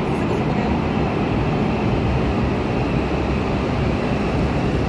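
E6 series shinkansen pulling into the platform: a steady, even rumble of the train running past.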